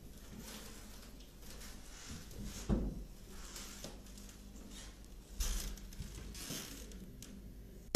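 Quiet room sound broken by two dull thumps, one a little under three seconds in and a second, softer one about five and a half seconds in.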